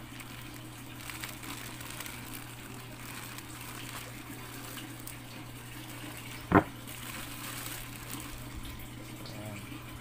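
Aquarium water bubbling and splashing over a steady low hum. About six and a half seconds in comes a single sharp knock, the loudest sound.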